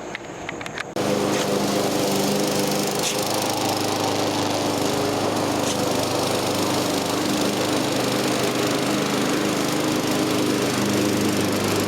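Troy-Bilt 21-inch self-propelled gas lawn mower engine running steadily. It starts abruptly about a second in, after a quieter moment with a few clicks.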